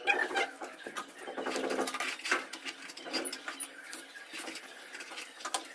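Gritty scraping and small knocks of a trowel and a wooden profile board working wet cement around a cement baluster mould. About a second in, a short pitched sound rises over the scraping.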